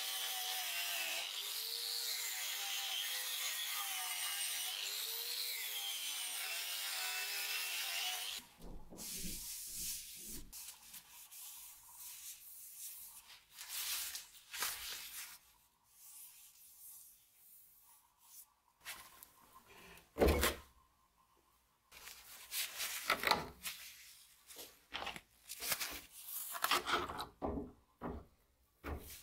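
Angle grinder with a wire cup brush scrubbing rust off a steel axe head, a steady grinding noise with a wavering whine that stops abruptly about eight seconds in. Then scattered knocks, rubs and clunks of the metal axe head being handled, with one sharp loud knock about two-thirds of the way through.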